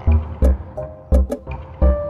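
Ethno-style background music with a steady drum beat and held melodic notes.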